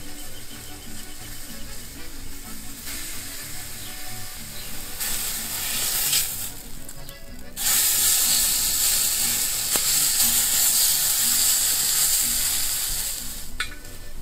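Beef steak searing in hot fat on a steel plow-disc pan over a wood fire: a steady sizzle that grows louder about halfway through and drops away shortly before the end.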